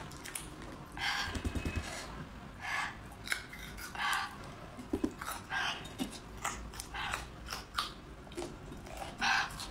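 Papery skins being peeled off raw garlic cloves by hand: a dozen or so short, dry crackles and rustles, ending with a bite into a raw clove.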